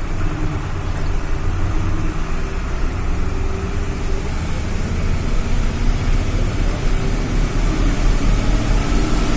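A vehicle driving along a mountain road: a steady engine hum over a deep, continuous rumble of road noise, with an even hiss on top.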